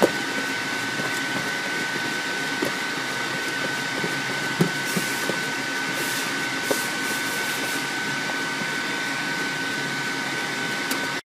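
Reference Cutter RC800 food-cutting machine running steadily with a constant high whine, with a few light knocks as it cuts boiled potatoes; the sound cuts off abruptly near the end.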